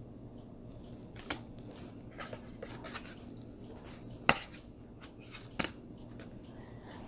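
Oracle cards being handled as the deck is paged through: soft sliding and rubbing of card stock with a few light taps, the sharpest about four seconds in.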